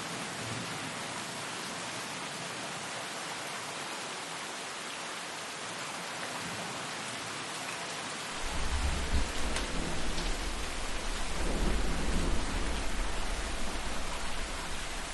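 Steady rainfall, with a deep roll of thunder that comes in about halfway through, swells, then fades away near the end.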